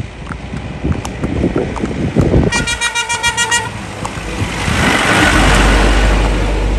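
Horse hooves knocking on a road. About two and a half seconds in, a vehicle horn sounds for about a second. Then a passing motor vehicle's engine and tyre noise swells to be the loudest sound near the end.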